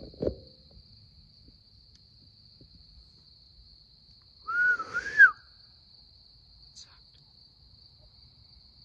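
A short, loud human whistle about four and a half seconds in, a two-humped note that rises and falls twice, over the steady high chirring of night insects such as crickets.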